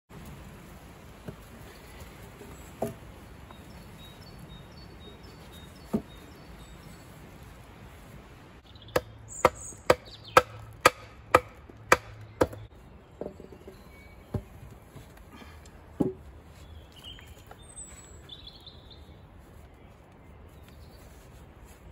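Sharp knocks of repeated tool strikes. There are a few single knocks, then a run of about eight strikes at roughly two a second in the middle, then a few more scattered ones.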